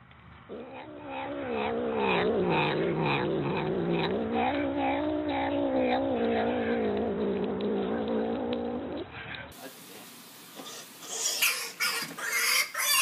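A tabby cat's long, low, wavering growl-yowl that runs for about eight seconds while it crouches with its mouth on a piece of food, a food-guarding growl. Near the end come higher, broken cries over the rush of running tap water.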